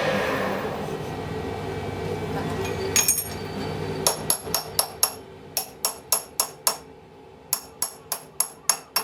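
Hammer blows on metal: sharp, ringing strikes about two to three a second, starting about three seconds in, with a short pause near the end before they resume. A steady noise fades out over the first few seconds.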